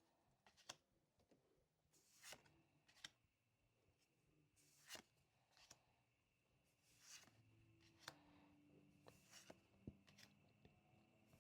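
Faint, scattered rustles and light clicks of Pokémon trading cards being handled and slid past one another.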